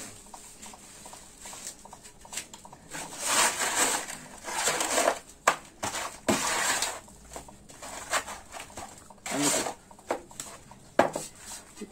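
Wet cement mortar scooped and scraped by hand in a plastic bowl and spread onto the back of a wall tile: an irregular run of short scrapes with a few sharp slaps.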